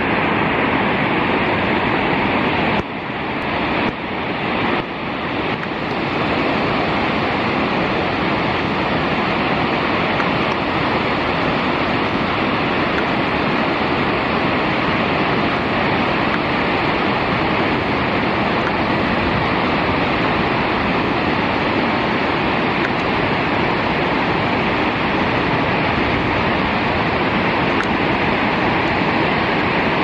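Steady, loud rushing of a waterfall, a cascade dropping through a chain of small pools into a white-water mountain stream in a rocky gorge.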